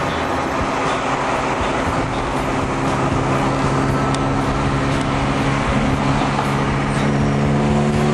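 Volvo engine running through a worn-out old exhaust, its steady note over a rushing noise. About six seconds in the note starts to climb slowly as the car pulls harder.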